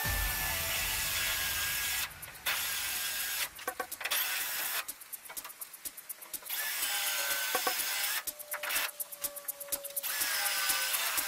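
Yellow DeWalt cordless drill with a spot weld drill bit cutting through the sheet-steel A-pillar panel, drilling holes for plug welds. It runs in about five bursts, a grinding hiss over a motor whine, with short stops and a few clicks between them.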